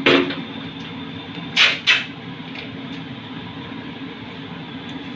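A metal ladle clanking against a metal cooking pot of soup: one sharp knock at the start and two more close together about one and a half seconds in, over a steady background hum.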